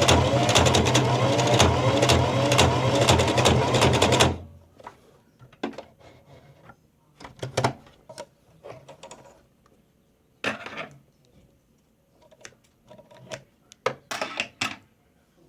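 Singer Heavy Duty sewing machine running fast with a hum and rapid clicking, stopping about four seconds in, followed by a few scattered clicks and knocks. The owner hears the clicking as the machine seeming not to catch when sewing.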